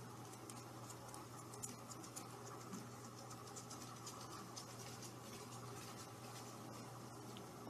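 Faint scratchy ticks and rustling of a kitten pawing at a wand toy on a fabric sofa, thinning out near the end, over a steady low hum.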